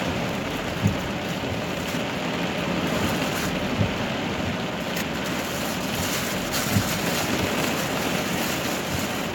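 Steady hiss of rain and wind around a car, with a few scattered faint taps.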